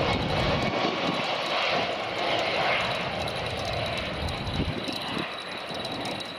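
Jet engines of an Iberia Airbus A330 on final approach with gear down, a steady rushing jet noise that slowly fades as the airliner passes and moves away.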